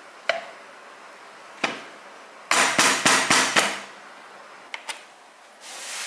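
Espresso portafilter knocked against the rubber bar of a stainless knock box to dump the spent coffee puck: two single knocks, then a quick run of several loud knocks about two and a half seconds in, followed by a couple of light clicks.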